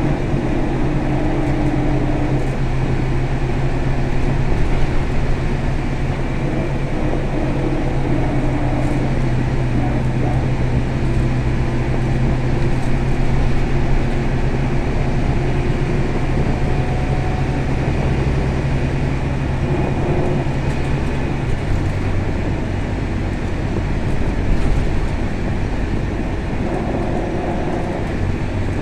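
Scania K320 bus's diesel engine running under way, heard from inside the passenger cabin as a steady drone with road noise. The drone drops to a lower pitch about three-quarters of the way through.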